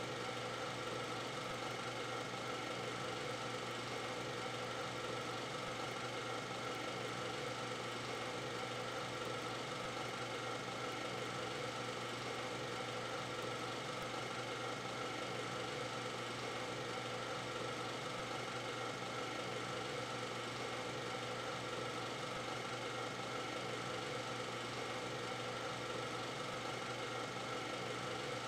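Steady, unchanging mechanical running noise: a constant whir with several held tones over an even hiss.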